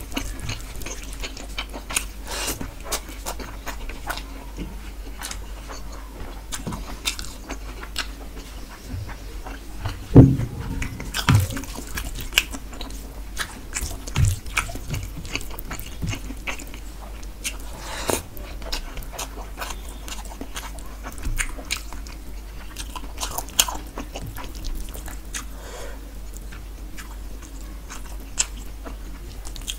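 Close-miked chewing and wet mouth sounds of a person eating rohu fish curry and rice by hand, full of short clicks. A few dull thumps stand out, the loudest about ten seconds in.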